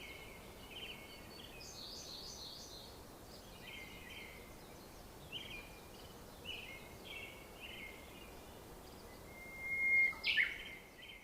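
Songbirds chirping outdoors in short, repeated phrases, with a louder call about ten seconds in that drops in pitch, over a faint steady background hiss.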